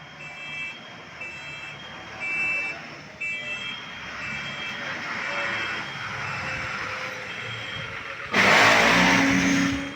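An electronic alarm beeping steadily on two high pitches, about every half second, fading out after about halfway, over steady vehicle noise. About eight and a half seconds in, a loud hissing burst lasts about a second and a half.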